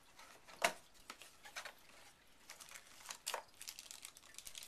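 Cardboard box and plastic-bagged accessories being handled: packaging rustling and crinkling in short bursts, with a sharp rustle a little over half a second in and another just past three seconds in.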